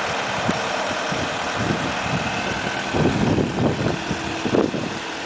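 Renault Master van's diesel engine idling steadily, with wind buffeting the microphone in uneven low rumbles in the second half.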